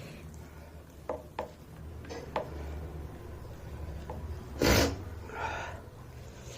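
Close-up eating sounds: scattered small mouth clicks and chewing, with one loud, short, noisy burst about two-thirds of the way through and a softer rustle right after it.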